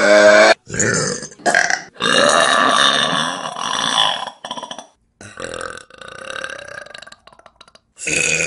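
A quick run of loud human burps, one after another, each cut off abruptly before the next begins. The longest, about two seconds, comes around two seconds in, and fainter, shorter ones follow.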